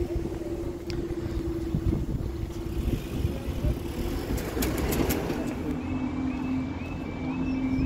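Road vehicles running with a steady engine hum, one passing over the crossing about five seconds in. Near the end the level crossing's warning alarm starts up, a high stepped warble repeating a little over twice a second, as the amber lights come on to begin closing the crossing.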